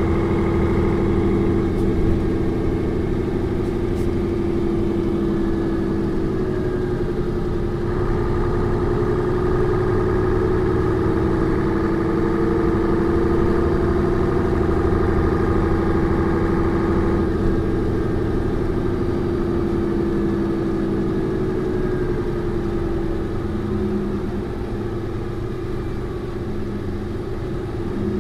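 Mercedes-Benz O405 N2 city bus engine running with a steady drone. Its pitch rises slightly about a third of the way in and falls back again, and the sound gets a little quieter near the end.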